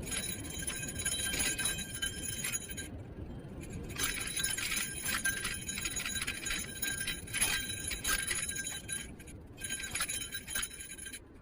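Light metallic jingling and chinking from an electric kick scooter rolling over pavement, over a low rumble of wheels on the road. The jingling cuts out for about a second a little after the start, and again briefly twice later.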